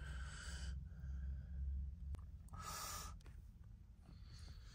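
A person exhaling and drawing breath while smoking: a breathy hiss at the start, a louder one about two and a half seconds in and a fainter one near the end, over a low steady rumble.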